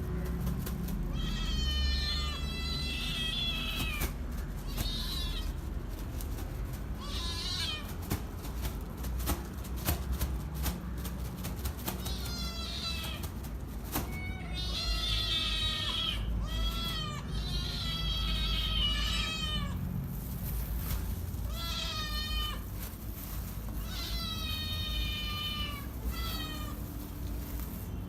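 Hungry kittens meowing loudly and repeatedly, high-pitched calls that often fall in pitch, in bursts with short gaps, sometimes two calling over each other. Scattered clicks and a steady low rumble sit underneath.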